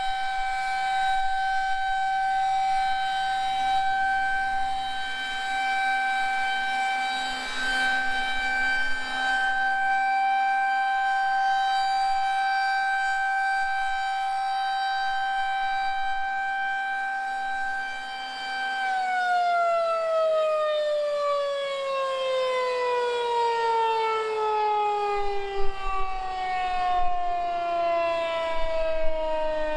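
Federal Signal 2001-130 electromechanical outdoor warning siren sounding its steady Alert tone in a scheduled test. About two-thirds of the way through, the pitch begins to fall slowly and steadily as the siren winds down.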